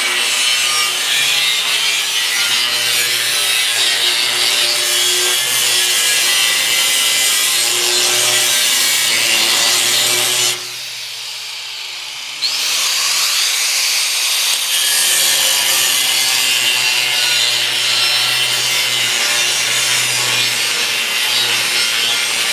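Electric power tool cutting or grinding under load: a harsh, continuous hiss over a steady motor hum. The cutting eases for about two seconds near the middle, then resumes.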